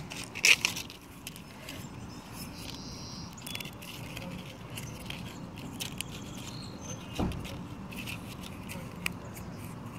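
Outdoor background noise with scattered clicks and rustles from a phone being handled close to the microphone. There is a short louder sound about half a second in and a dull bump about seven seconds in.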